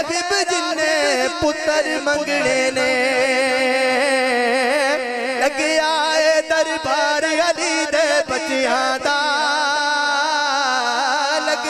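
A man singing a Punjabi devotional naat in praise of Ali into a microphone, holding long, wavering, ornamented notes with few breaks.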